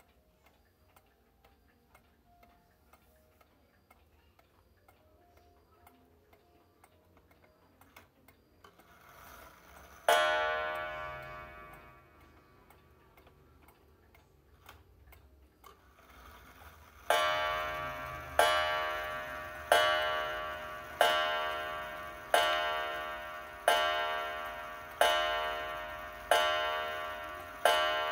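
Antique pendulum shelf clock ticking faintly, then its coiled wire gong striking once about ten seconds in, after a short rising whir. From about seventeen seconds in it strikes the hour, one ringing strike about every 1.3 seconds, each fading out before the next.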